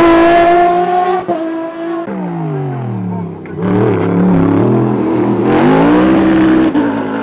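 Racing car engines at full throttle: one car passes close at high revs, then a sports prototype slows into a hairpin, its engine pitch falling through downshifts, and accelerates out, the pitch climbing through the gears.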